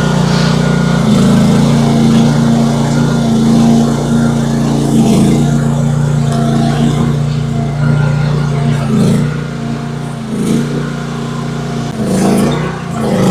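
Engine of a 13-horsepower Chinese mini excavator running steadily under load while it tears boards off a wooden bridge. A few sharp knocks and cracks come from the timber being pried up, several in the second half.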